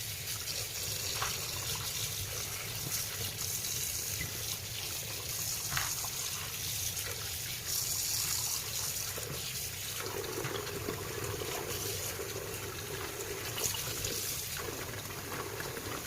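Tap water running steadily over boiled chicken feet as they are rinsed by hand, with a few light knocks of handling. About ten seconds in, the water sound deepens as it splashes into a filling container.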